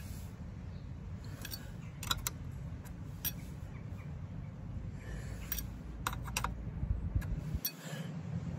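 Scattered light metallic clicks and clinks of a spanner working the rear-wheel chain adjuster bolt on a motorcycle swingarm, as the adjuster is nudged to its mark, over a low steady background rumble.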